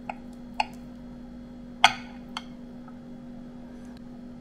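Stainless steel knife and spoon clinking against a ceramic plate while cutting a boiled egg: four sharp clinks in the first two and a half seconds, the loudest about two seconds in. A faint steady hum runs underneath.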